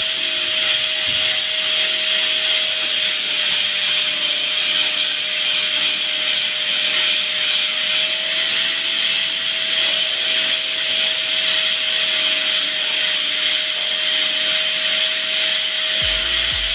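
Electric angle grinder running steadily with its disc grinding into a coconut's husk: a steady motor whine over a dense abrasive hiss.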